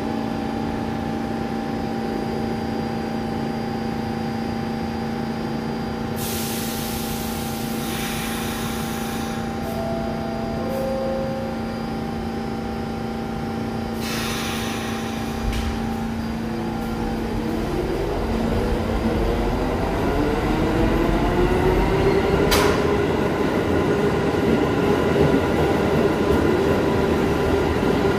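New York City subway train standing at a station platform, its equipment giving a steady hum. Bursts of air hiss come about six and fourteen seconds in, and two short descending tones like a door chime sound around ten seconds. From about eighteen seconds a rising motor whine and growing rumble show the train pulling out.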